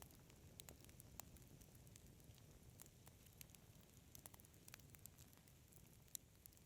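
Wood fire crackling softly in a fireplace: scattered sharp pops, a few each second and irregular, over a faint low rumble.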